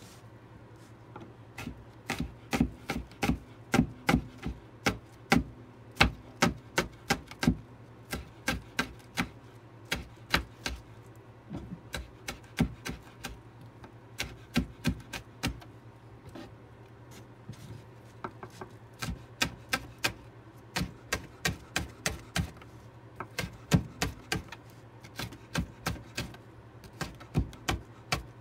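Chef's knife slicing green onions on a plastic cutting board: sharp knocks of the blade on the board, about three a second, in runs with a few short pauses. A faint steady low hum runs underneath.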